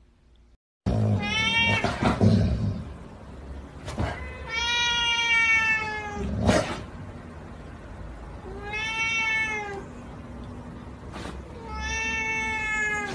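A kitten meowing four times in drawn-out, high-pitched calls, each about a second long. A few knocks come between the calls.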